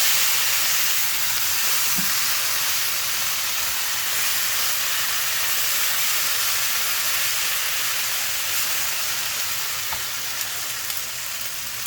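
Kimchi fried rice sizzling in a hot pan: a steady frying hiss that eases off slightly toward the end, with a few faint clicks near the end.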